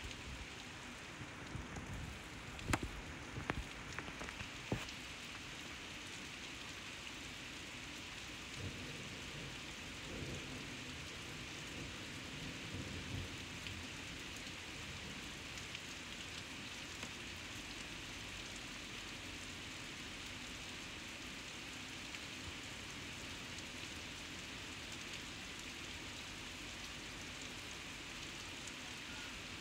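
Steady rain falling on a grassy yard, with a few sharp taps of drops near the start.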